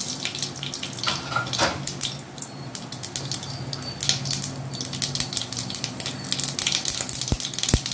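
Mustard seeds sizzling in hot oil, with many small crackles and pops as they start to splutter.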